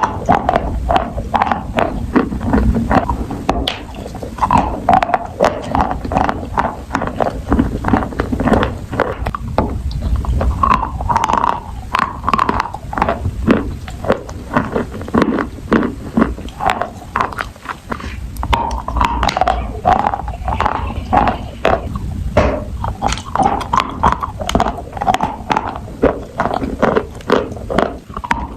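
Close-up chewing and crunching of food, with a dense run of sharp crunches and wet mouth sounds.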